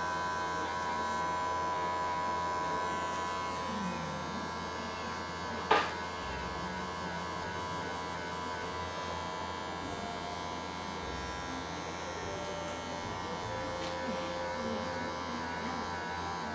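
Electric pet clippers fitted with a 2 mm blade running with a steady hum as they shave through a cat's thick, matted coat. A single sharp click about six seconds in.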